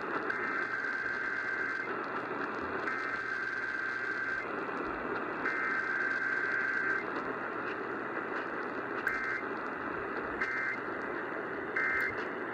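Emergency Alert System digital data bursts received on an AM radio through heavy static: three buzzy header bursts of about a second and a half each, then three short bursts near the end in the pattern of the end-of-message code.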